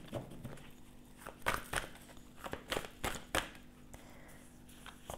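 A deck of tarot cards being shuffled by hand: cards sliding against each other with a handful of short, sharp snaps scattered through.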